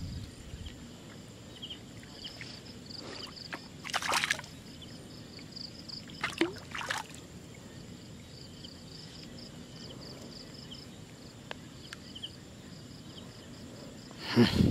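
Hooked fish thrashing at the water's surface on a taut line, with a few brief splashes: one about four seconds in, two close together past the middle, and one near the end as it is lifted.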